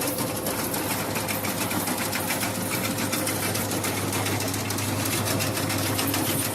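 A machine running steadily, a fast even mechanical clatter over a low engine hum.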